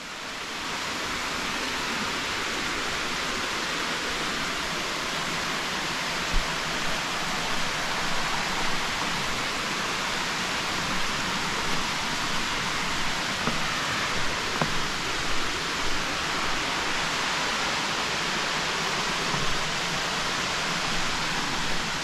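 Waterfall falling in a steady, even rush of water noise, heard up close.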